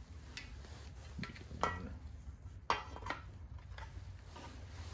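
A few light clicks and knocks of hard parts being handled and fitted together, over a low steady hum.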